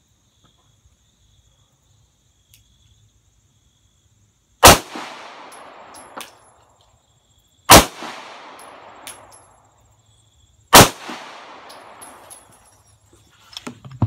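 Three pistol shots from a CZ P-09, about three seconds apart, the first fired double action; each shot is followed by an echo that dies away over a second or so. A few light clicks near the end.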